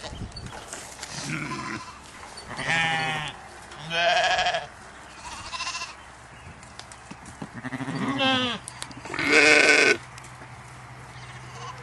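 Sheep and goats bleating, about six separate calls, some short and some drawn out, the loudest near the end.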